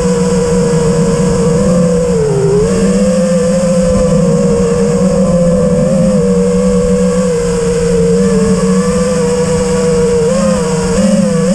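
FPV quadcopter's brushless motors and propellers whining steadily, heard from its onboard camera, the pitch dipping briefly about two seconds in and wavering near the end as the throttle changes. A low rushing noise runs beneath the whine.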